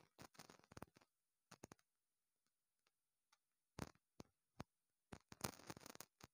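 Near silence broken by scattered faint clicks, a few early on and more of them after about five seconds.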